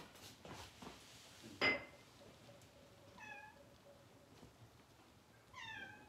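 A sharp knock about a second and a half in, then a cat meowing twice, two short meows a couple of seconds apart.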